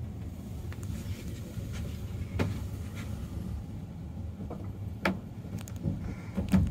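Cable-hauled funicular car running down its inclined track: a steady low rumble, with sharp knocks about two and a half seconds in, around five seconds in and near the end.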